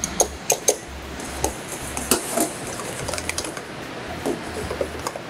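Wire whisk clinking and scraping against a stainless steel mixing bowl in quick, irregular taps, as cornstarch is mixed into whipped egg whites for a tempura batter.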